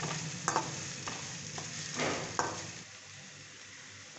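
Metal slotted spatula scraping and clinking against a stainless steel kadai while chopped ginger, garlic and green chillies sizzle in oil. The stirring stops about three seconds in, leaving a fainter sizzle.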